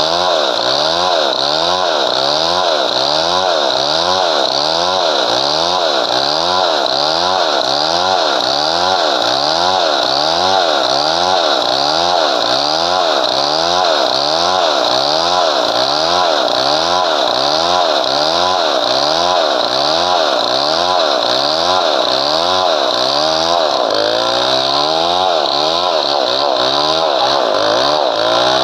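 Chainsaw running under load, cutting padauk wood, its engine pitch rising and falling evenly about one and a half times a second.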